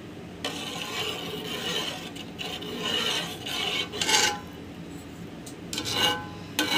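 Steel spoon scraping and stirring against the bottom and sides of an aluminium pot of milk, with a rasping scrape over the first four seconds. A few light metallic clinks follow near the end.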